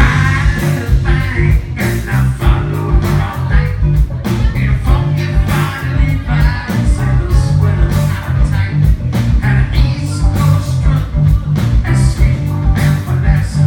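Live blues-rock band playing: steady drum beat and bass under keyboards and saxophone, with some singing.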